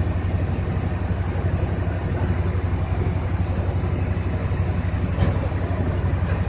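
Diesel engines of mobile truck cranes running steadily, a deep even rumble, while the cranes hold a precast concrete girder aloft.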